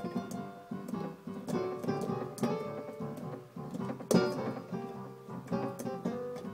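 Keyboard with a piano sound played with both hands: a solo passage of quick notes over chords, with a loud accented chord about four seconds in.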